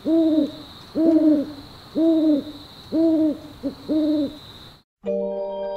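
Owl hooting: five hoots about a second apart, each rising then falling in pitch, with a brief extra hoot before the last, over a faint steady high whine. Near the end the hooting stops and chiming mallet-percussion music begins.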